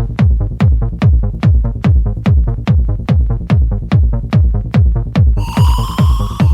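Electronic dance music in the Spanish 'sonido caserío' style: a steady four-on-the-floor kick drum at about two and a half beats a second over a pulsing bass. A high synth lead comes in about five seconds in.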